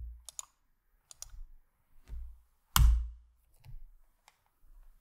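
Scattered clicks of computer keys as a command is typed and entered, with a dull thud under each. One click about three seconds in is much louder than the rest.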